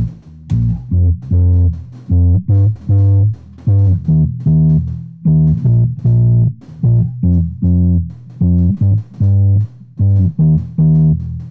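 Fingerstyle electric bass playing a busy line of short, separated low notes, about three or four a second, played back on its own. A boosted EQ band is being swept through the low end to hunt for resonant notes that stick out.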